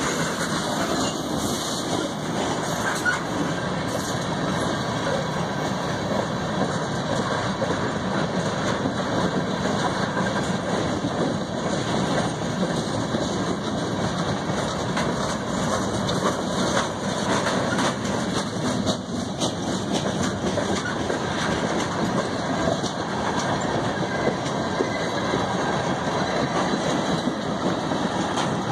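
Freight train cars (steel gondolas, a covered hopper, tank cars) rolling past: a steady rumble and rattle of steel wheels on rail, with frequent clicks as the wheels cross rail joints.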